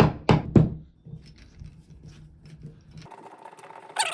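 Hammer tapping a molly anchor into drywall: quick blows about three a second that stop in the first second, followed by light handling clicks and a brief metallic jangle near the end.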